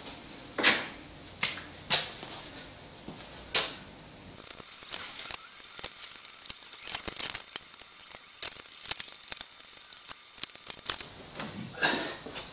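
Glue-up handling sounds: separate sharp knocks of wooden parts in the first few seconds, then a denser run of small clicks and light rustling from about four seconds in until near the end.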